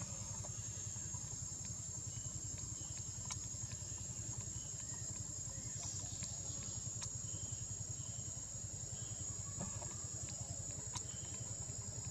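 A low engine running steadily at idle, a fast even pulsing drone, with a steady high-pitched insect drone over it and faint scattered clicks.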